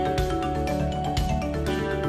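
Instrumental background music with a steady beat of about two struck notes a second.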